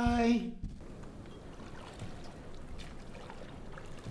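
A man's drawn-out sung or chanted note cuts off within the first second. After it comes quiet marina ambience: water lapping around small moored boats and a pontoon, with a few faint knocks.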